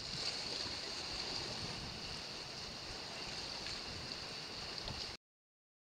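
Steady wash of sea surf against a rocky shore, with a steady high hiss over it, cutting off abruptly about five seconds in.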